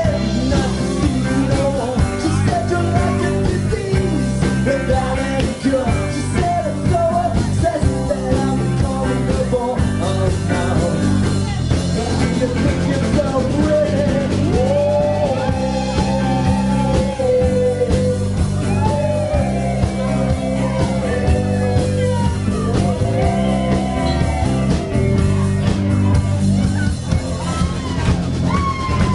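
Live rock band playing loud through the PA, with a lead singer carrying the melody over drums and bass.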